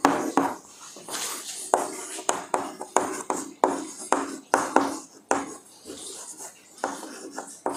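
Chalk writing on a chalkboard: irregular sharp taps as the chalk strikes the board, with scratchy strokes in between.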